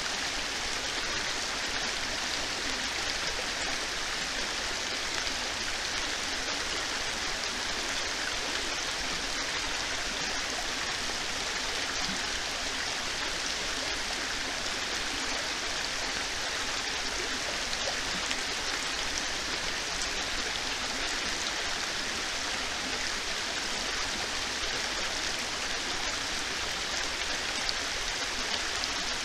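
Heavy rain pouring down: a steady, even hiss with no letup.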